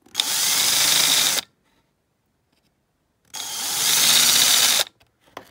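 Power drill running in two short bursts of about a second and a half each, drilling out the clips that hold the glazing into a die-cast model car.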